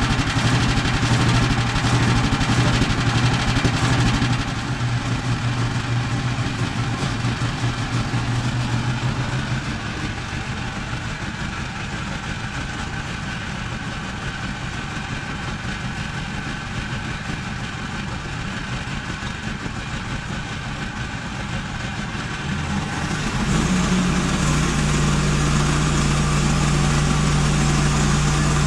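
Small gas engine running steadily, as on a portable sawmill. Its pitch settles lower about four seconds in, then picks up again near the end.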